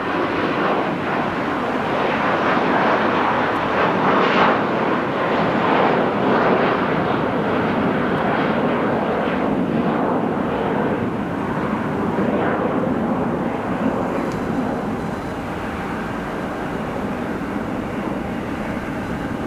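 Airbus A321 jet airliner's engines at takeoff power as it departs, a steady rushing noise that slowly grows fainter over the second half.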